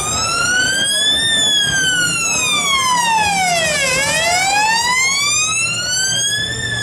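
Police car siren on a Land Rover Discovery sounding a slow wail: the pitch climbs, sweeps down to its lowest about four seconds in, then climbs again near the end.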